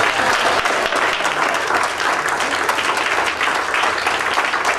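Audience applauding, a dense steady clapping of many hands in a large room.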